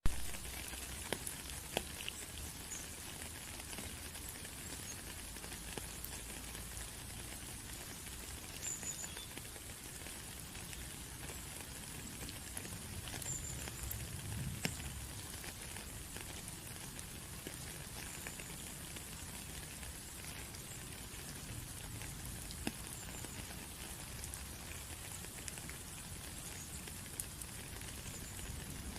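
Steady rain falling, an even hiss dotted with scattered ticks of single drops, after a sharp click right at the start.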